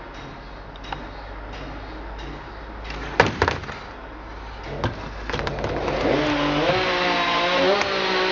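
A few sharp knocks about three seconds in, then from about six seconds an engine running, its pitch stepping up and down and starting to fall away near the end.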